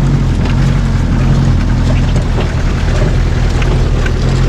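A vehicle engine running steadily close by, a low even hum whose pitch dips briefly and then holds again.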